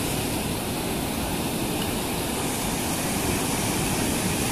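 Ocean surf breaking and washing up the sand in a steady rush, with wind on the microphone.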